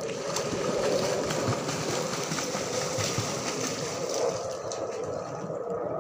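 Water splashing and sloshing steadily as people wade through a shallow muddy pond, dragging a fishing net on poles.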